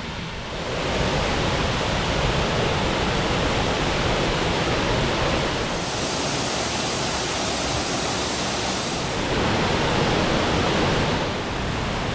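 Rochester Falls' waterfall rushing: a steady wash of water noise that grows louder about a second in and turns brighter and hissier for a few seconds in the middle.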